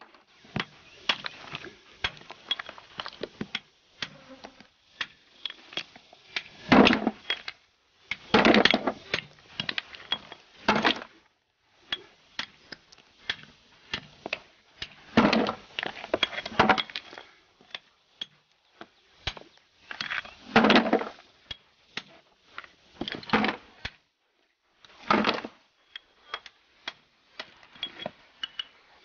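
A steel blade scraping and prying at small slabs of grey shale as they are split, with sharp clicks and ticks of stone. Several louder rasping scrapes of about a second each come through.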